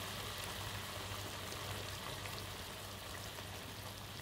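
Rabbit meat and masala sizzling gently in coconut oil in a pot on a gas stove, a steady soft crackle with no stirring. A low steady hum runs underneath.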